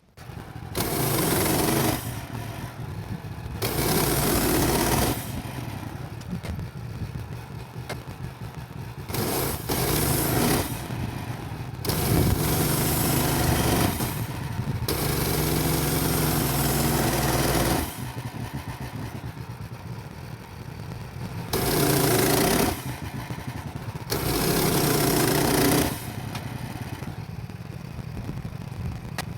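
Woodland Mills HM130MAX portable band sawmill running on its gas engine, the band blade cutting tulip poplar. The sound swells louder and brighter in several stretches of a second or more, the longest about six seconds, and drops back to a lower running level in between.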